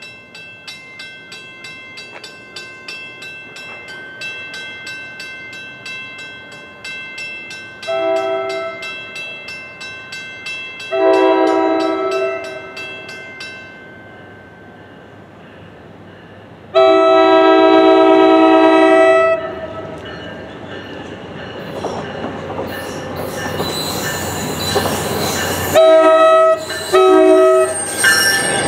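A grade-crossing bell dings rapidly for the first dozen seconds and then stops. The horn of an NJ Transit ALP-45DP locomotive sounds five blasts, three long then two short, while the train's rumble and rail noise grow to a loud close pass at the end.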